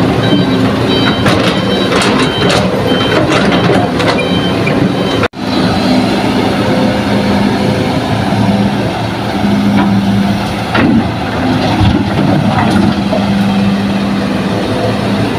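Diesel engines of a Hitachi hydraulic excavator and dump trucks running steadily, with a truck's reversing beeper repeating in the first few seconds. The sound drops out briefly about five seconds in, and a couple of knocks come around eleven seconds in.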